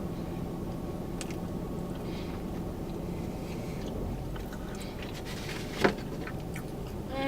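Close-up chewing of a soft cinnamon roll: quiet mouth and biting sounds with a few small clicks, and one sharp wet smack about six seconds in, over a steady low background hum.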